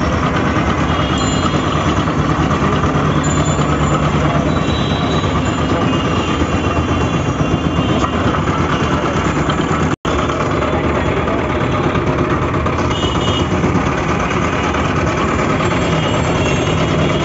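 Motor-driven sugarcane crusher running steadily, its belt-driven flywheel turning the steel rollers as cane stalks are fed through and crushed. The sound breaks off for an instant about ten seconds in.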